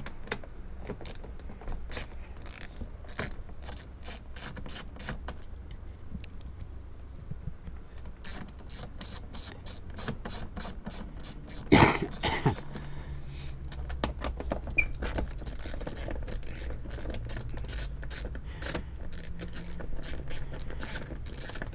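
Ratchet wrench clicking in quick runs as the bolts holding a plastic engine splash shield under the car are undone, with one louder knock near the middle.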